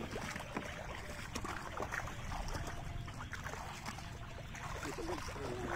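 Legs wading through shallow floodwater, sloshing and throwing up small splashes with each step, over a steady low rumble.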